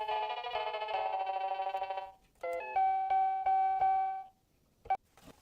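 Electronic educational toy's jingle: a chiming synthesized chord for about two seconds, then several short doorbell-like beeps on one pitch.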